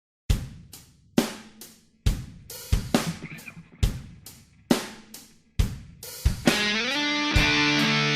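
EZdrummer software drum kit playing an intro of spaced kick-and-cymbal hits, each left to ring out. About six seconds in, a Michael Kelly Valor Special electric guitar comes in with sustained, distorted chords through a Line 6 PODxt Live amp modeller.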